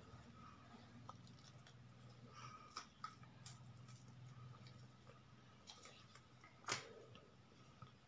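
Faint, irregular ticking and light clicks of a balloon whisk striking the sides of a plastic bowl as instant coffee, sugar and hot water are whipped by hand, with one sharper click about two-thirds of the way through. A faint low hum lies underneath.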